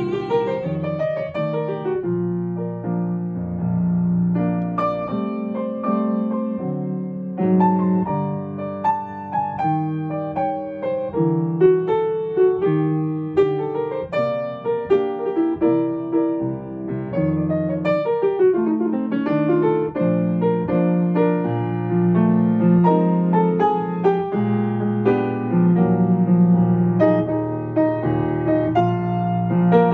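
Grand piano playing a solo interlude in a slow jazz ballad, with full chords and a singing melody line. At the very start a singer's held note with vibrato fades out.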